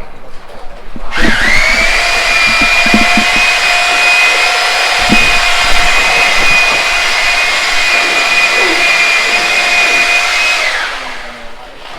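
A handheld electric power tool on a building site spins up about a second in, runs at a steady high-pitched whine for about nine seconds, then winds down near the end.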